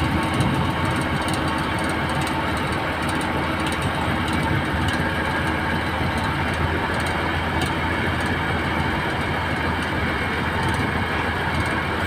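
Heavy diesel engine idling steadily, an even low rumble that holds the same pace throughout.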